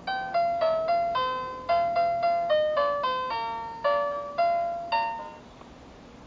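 Electronic children's song book playing a nursery-rhyme melody in simple chime-like electronic notes, each note struck and fading quickly. The tune stops about five and a half seconds in, leaving faint hiss.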